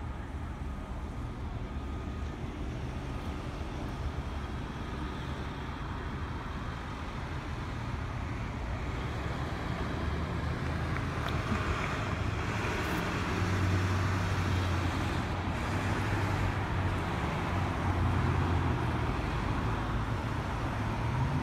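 Road traffic: cars, police cars and a pickup truck driving past, engines running over tyre noise. It grows louder about halfway through as vehicles pass close, with a low engine drone and a brief rising engine note near the end.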